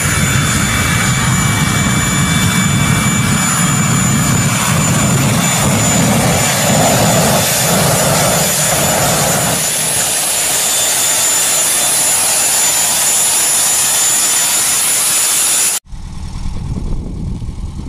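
A jet turbine engine on a custom trike running loud: a rushing blast with a steady high-pitched whine over it. About sixteen seconds in it cuts off suddenly, and a small motorcycle engine is heard idling.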